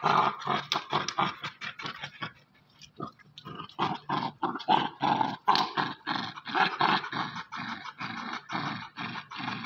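Young American Pit Bull Terrier growling in play while tugging on a rubber ring toy: a fast run of rough growls, broken by a brief pause about two and a half seconds in.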